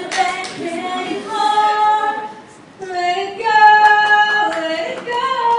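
Women singing unaccompanied in long held notes, with a short break about two and a half seconds in.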